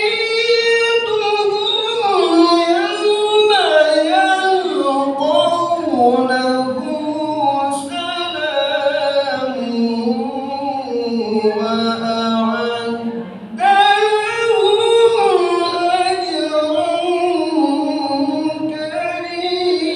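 A man singing an Islamic devotional chant (sholawat) solo into a microphone, unaccompanied, in long ornamented phrases with held notes. He breaks off for a breath about thirteen seconds in, then starts a new phrase.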